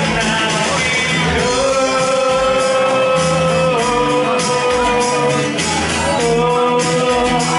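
Live acoustic music: a man singing long, held notes into a microphone over a strummed acoustic guitar.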